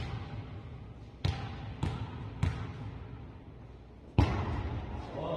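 A volleyball being struck and hitting the court in play, five sharp smacks in all. One comes at the start, three follow quickly about half a second apart, and a louder one comes near the end.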